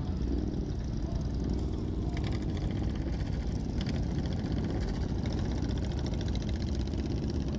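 Suzuki Intruder 800 cruiser's V-twin engine running steadily at idle and low speed while rolling slowly in a pack of motorcycles, with the other bikes' engines around it.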